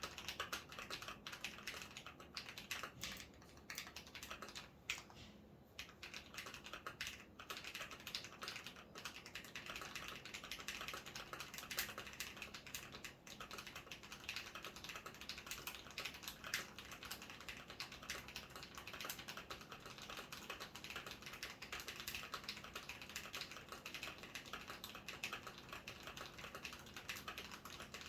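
Fast, continuous typing on a Gamakay K77 mechanical keyboard with lubed Akko CS Ocean Blue tactile switches and PBT keycaps: a dense stream of key clacks, with short pauses about five and thirteen seconds in.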